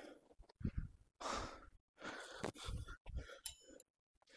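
Heavy breathing: a man puffing and sighing out several breaths in a row, catching his breath after a tough set of seated cable rows. Near the end there is a short metallic clink from the weight-stack pin being moved.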